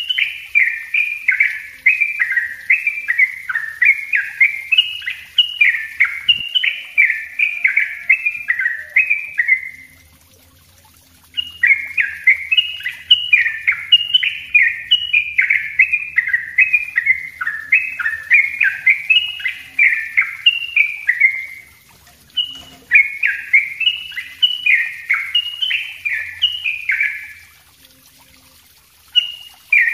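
Caged trucuk (yellow-vented bulbul) singing its fast, tightly packed 'ropel' song: long runs of quick whistled phrases, each sliding down and back up in pitch. The runs break off in short pauses about ten seconds in, about twenty-two seconds in and near the end.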